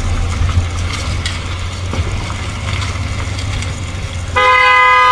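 A vehicle horn sounds one loud held blast near the end, cutting in suddenly over a steady low rumble.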